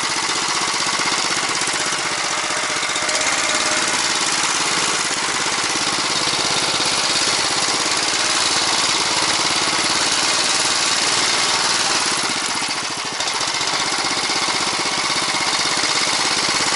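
A Bars Sledopyt motorized tow dog's petrol engine runs steadily under load as the machine pulls through snow. The engine dips briefly about twelve seconds in, then picks up again.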